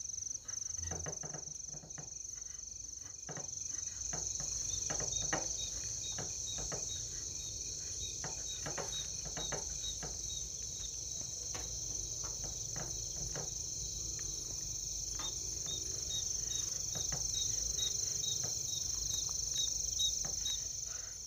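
A knife cutting beef strips into small pieces on a chopping board: irregular short strokes, about one or two a second. Behind them runs a steady high cricket trill, with quicker chirps in two stretches.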